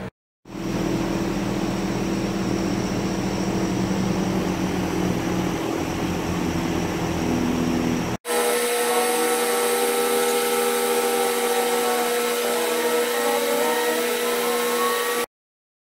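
CO2 laser cutter running while it cuts acrylic sheet: a steady machine whir. About halfway through, the sound jumps to a different steady hum with faint pitch glides, and it cuts off abruptly just before the end.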